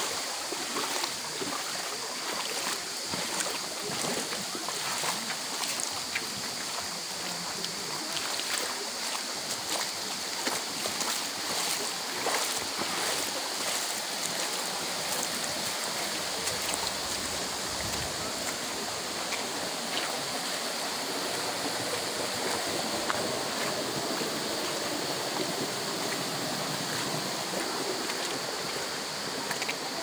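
Shallow stream running over stones and gravel: a steady rush of water, with scattered light clicks.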